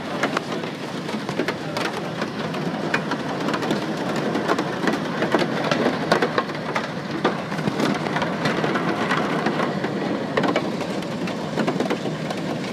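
Hail and heavy rain striking the airliner's fuselage and windows, heard from inside the cabin: a steady rush of noise broken by many sharp, separate hits.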